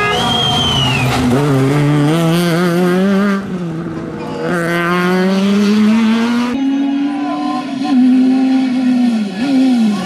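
Fiat Punto Super 1600 rally car's 1.6-litre four-cylinder engine revving hard under full acceleration. Its pitch climbs in each gear and drops at each shift, with a lift and a short blip near the end.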